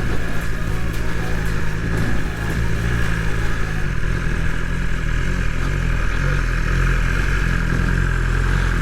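BMW S1000XR inline-four engine running at a steady cruising speed, with wind and road rush over it.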